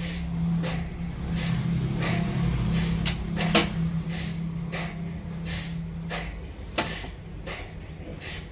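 Sawmill machinery running with a steady low hum that fades away about six seconds in, over repeated short hissing bursts, with a sharp knock about three and a half seconds in.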